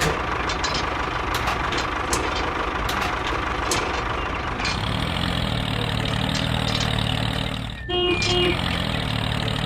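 Engine running steadily at idle, with scattered clicks and knocks over the first few seconds. About halfway through it changes to a deeper, even hum, which cuts out briefly near the end and comes back with a few short tones.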